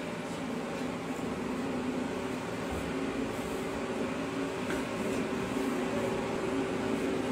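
Double-chin fat-reduction treatment machine running with a steady mechanical hum while its applicator works under the chin.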